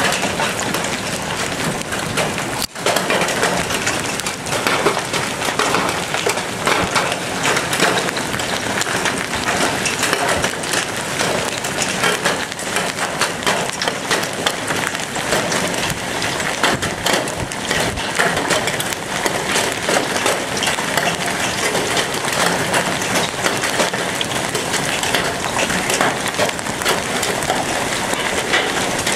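Large hailstones falling in a hailstorm: a dense, steady clatter of impacts with frequent sharp cracks from single stones.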